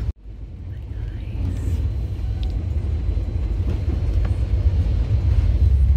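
Low, steady rumble of a moving passenger train heard from inside a sleeper coach. It comes in after a brief gap at the start and slowly grows louder.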